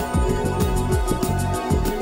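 Background music with a steady beat of deep drum hits and high ticks.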